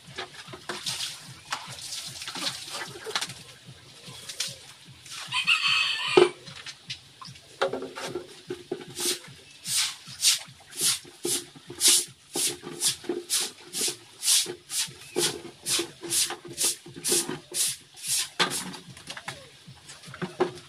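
Stiff stick broom scrubbing a wet concrete pig-pen floor in quick even strokes, about two a second, through the second half. Earlier there is water splashing and a short high-pitched animal call about six seconds in.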